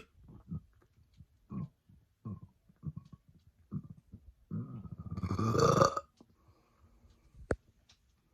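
A woman's long, loud burp, lasting about a second and a half and coming about four and a half seconds in, brought up from a stomach full of ginger ale. A few short faint sounds come before it, and there is one sharp click near the end.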